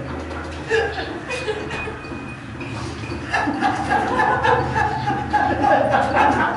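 A group of people laughing and talking over one another, louder from about three seconds in, with a few knocks before that.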